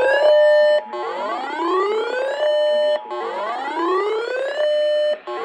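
Broadcast weather-alert siren tone: each sweep rises in pitch over about a second and a half, holds at the top for a moment, then cuts off and starts again, about every two seconds, with a faint steady tone underneath. It is the alarm sound that announces a tornado warning on the air.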